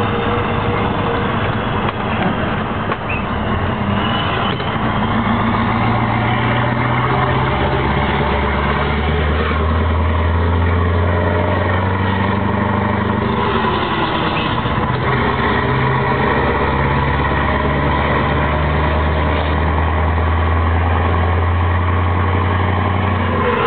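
Scania 164's 480 hp V8 diesel engine heard from the cab while the truck drives, a steady low drone that changes pitch several times as it pulls along.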